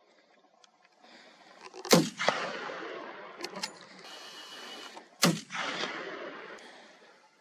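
Two gunshots about three seconds apart, fired at a running wild boar. Each shot is followed by a long rolling echo that fades over a second or more.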